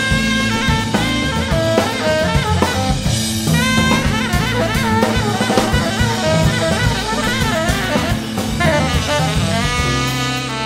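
Instrumental band music: a saxophone and brass melody over a drum kit keeping a steady beat.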